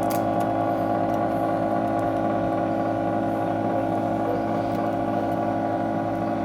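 Steady machine hum made of several pitches held level, from a heated vacuum-suction screen separator plate running.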